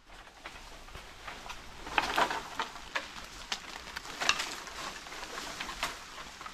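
Dry bamboo leaves and canes rustling and crackling as a standing bamboo cane is grabbed and tugged by hand. There are denser clusters of sharp crackles about two seconds in and again about four seconds in.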